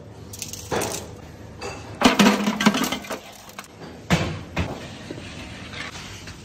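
Large aluminium cooking pot clanking and knocking as it is set on an oven peel and slid into a stone oven: a burst of metal clatter with a brief ringing about two seconds in, then a single sharp knock about four seconds in.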